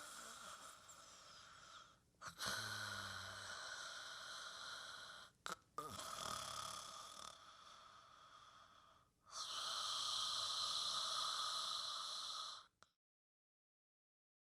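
A sound effect of heavy, snore-like breathing: four long, hissy breaths of two to three seconds each, with short pauses between them.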